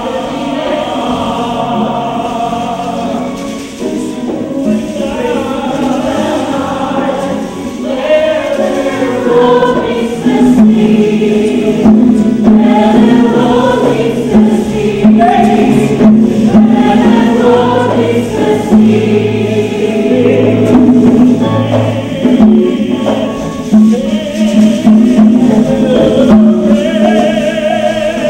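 A live stage-musical number: choir-style ensemble singing over sustained low accompaniment notes, growing fuller and louder about ten seconds in.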